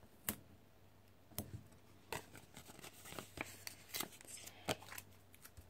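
Faint handling of paper stickers and planner pages: irregular light clicks, taps and rustles as date cover-up stickers are peeled from their sheet and pressed onto the planner, busiest in the middle.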